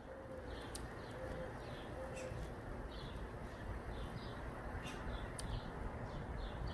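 Birds outdoors: a dove cooing softly about three times in the first two or three seconds, and short high chirps from small birds every second or so, over a steady low background rush.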